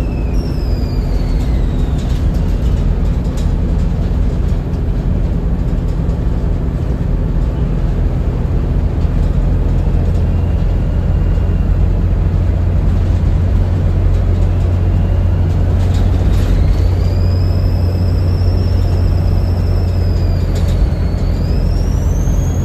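Volvo B7RLE bus's six-cylinder turbodiesel running with a steady low drone and a high turbo whistle. The whistle falls away in the first couple of seconds, then rises strongly about three-quarters of the way in, dips briefly and climbs again near the end as the revs build.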